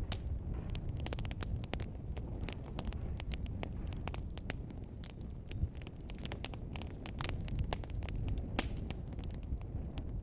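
Wood fire burning in a fireplace, crackling with frequent irregular sharp pops over a low steady rumble of the flames.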